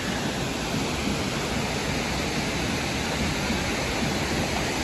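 A steady rushing noise with a flickering low rumble that does not let up.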